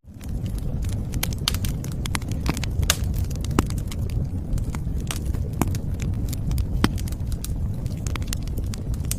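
Wood fire crackling and popping: irregular sharp snaps over a steady low rumble of burning flames, picking up again after a split-second gap at the very start.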